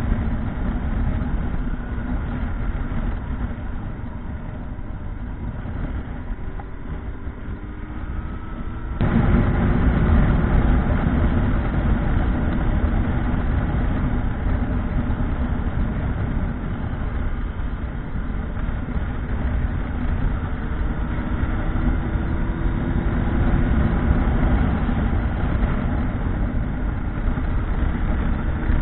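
Motorcycle engine running on the move, its pitch rising slowly as it pulls; the sound gets abruptly louder about nine seconds in.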